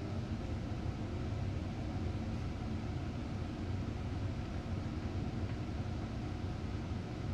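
Volvo B9TL double-decker bus running, heard from inside the passenger cabin: a steady low engine rumble with no sharp changes.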